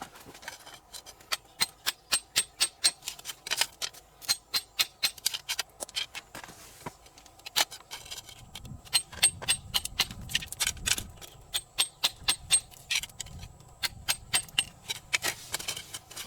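A quick, irregular series of sharp taps and clicks, hard objects knocking together with a brief high ring, several a second.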